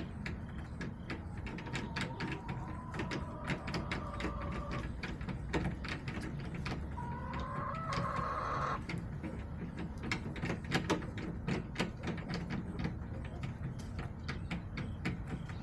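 Backyard hens pecking, making irregular sharp taps throughout, and a hen's drawn-out call twice, starting about one and a half seconds in and again about seven seconds in.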